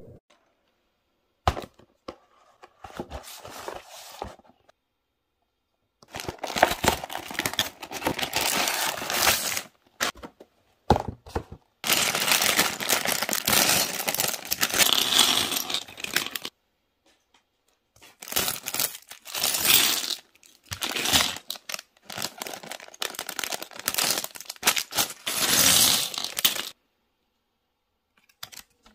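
Plastic bags of LEGO bricks crinkling and being torn open, with loose plastic bricks clattering, in several noisy stretches of a few seconds each separated by short pauses.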